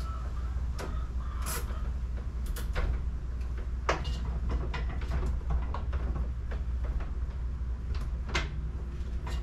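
Scattered clicks and rustles of electrical wires being handled and tucked against a plywood wall, over a steady low hum.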